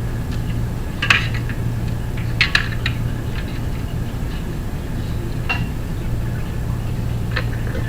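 A few light metallic clinks and taps, spaced a second or more apart, as computer-case hardware is handled, over a steady low hum.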